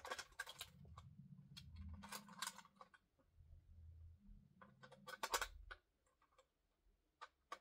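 Faint clicks and light clatter of small batteries and a plastic toy being handled, in two spells, the second around five seconds in.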